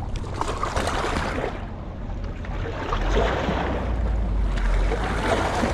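Wind buffeting the microphone, with a steady low rumble, over the wash of sea water against rocks.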